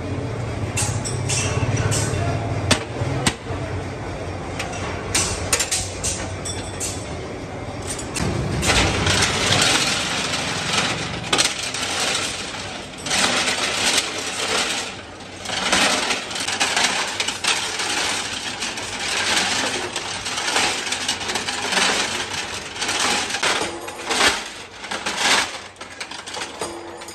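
A few sharp metal clicks as the lid latches of a barrel tumbler are fastened. About eight seconds in, a rough clattering rush of metal parts starts tumbling inside the turning drum, swelling and falling about once a second.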